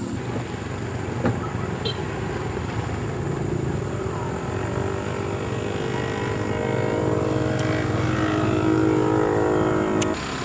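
Vehicle engine running with a steady droning note, growing louder from about four seconds in, then dropping off abruptly near the end with a click.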